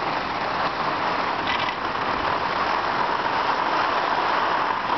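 Steady rushing hiss of skis sliding over snow, carried by the camera of a skier following close behind.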